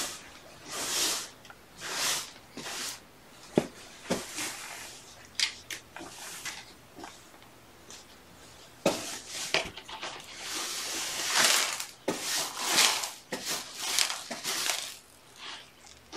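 Broom sweeping spilled dry cat kibble into a dustpan: a series of short swishes, roughly one a second, with a few sharp clicks in between.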